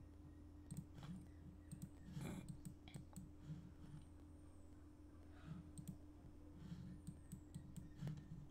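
Faint, scattered clicks of a computer mouse, a dozen or so spread unevenly, over a steady low electrical hum.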